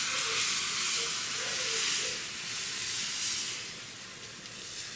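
Thin pancake batter sizzling in a hot greased frying pan, a loud steady hiss that eases off near the end.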